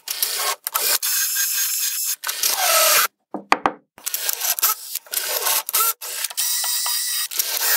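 Cordless drill-driver running in two long spells of about three seconds each, driving screws into plywood, with a few short bursts in the pause between them.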